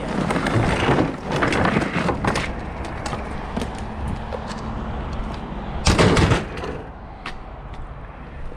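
A vehicle engine running steadily, overlaid by loud rattling and clattering bursts: one in the first two seconds and the loudest about six seconds in, with scattered clicks between.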